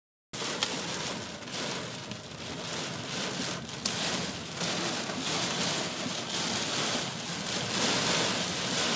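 Heavy rain pelting a car's roof and windshield, heard from inside the cabin as a dense, steady hiss that surges slightly, with a couple of sharp knocks of impacts on the body. It cuts in after a moment of silence.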